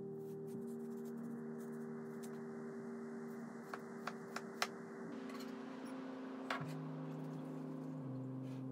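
A kitchen knife cuts through watermelon and clicks against a plastic chopping board, a few sharp taps about halfway through and one more a little later. Soft background music with slowly changing held notes plays under it.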